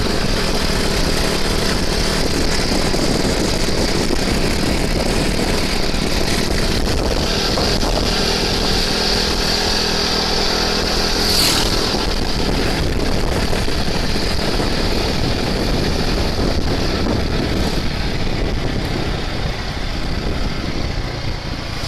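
Kawasaki KRR two-stroke trail motorcycle running steadily, with a brief sharper high-pitched sound about eleven seconds in.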